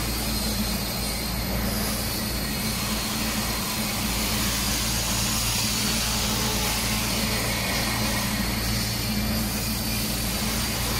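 Gas-heated continuous frying machine running with its burner lit while its mesh belt conveyor is raised by the lifting mechanism: an even, steady rushing noise over a low hum that does not change.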